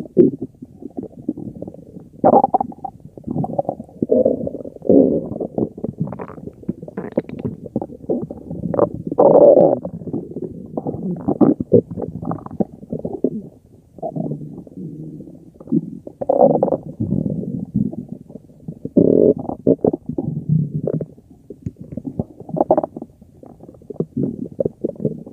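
A stomach growling: a long, unbroken run of deep gurgles and rumbles, rising into louder swells every few seconds.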